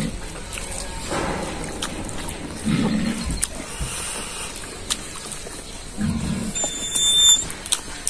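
A man eating rice and curry by hand: wet chewing and mouth clicks, with short low grunting hums about every three seconds.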